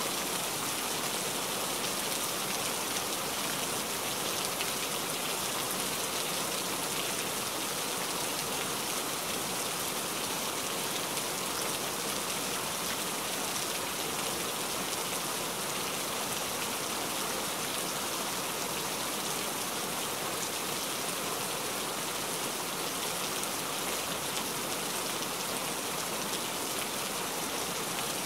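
Steady rain falling, an even hiss of many drops that holds at the same level throughout.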